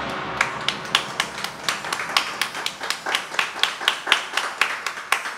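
Hand clapping in an even rhythm, about four claps a second, starting just as the song's last note dies away.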